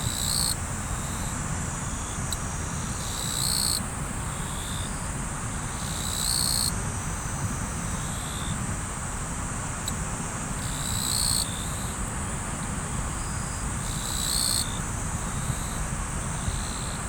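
Riverside ambience: river water running steadily, with insects trilling continuously high above it and a louder insect chirp of about half a second recurring every three to four seconds.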